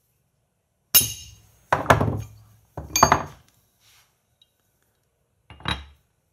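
Three sharp metallic knocks about a second apart, the first with a bright ring, as a chisel wedged between the flywheel webs of a Doppler endurance crankshaft is driven in to spread the webs, which are slightly pinched and throwing the runout out of tolerance. A lighter metal knock follows near the end.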